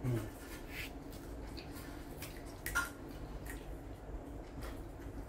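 Quiet eating sounds at the table: soft wet mouth and chewing sounds with scattered small clicks, and one sharper click a little after halfway. A short low hum of a voice at the very start.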